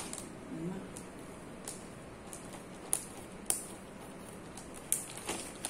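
A plastic zip-lock bag being handled and pressed shut, giving a few scattered short clicks and crinkles.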